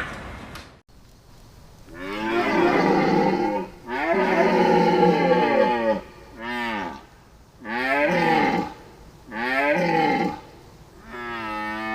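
Deer calling: a series of six drawn-out calls starting about two seconds in, each half a second to two seconds long, with a pitch that bends down and back up.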